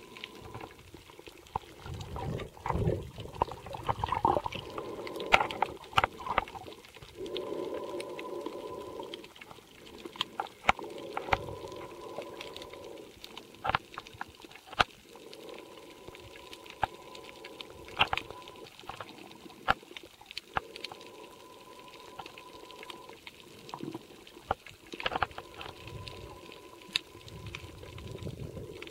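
Underwater sound picked up by a camcorder held below the surface while snorkeling: slow, drawn-out breaths through the snorkel every few seconds, with water noise and many scattered sharp clicks.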